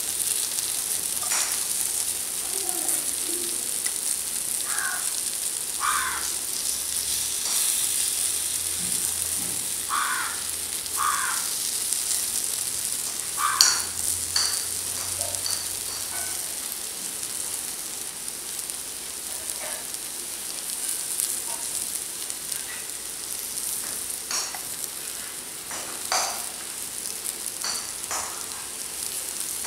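Raw banana slices sizzling as they shallow-fry in oil in a nonstick pan, with a steady high hiss. Now and then wooden chopsticks click and scrape against the pan as the slices are turned.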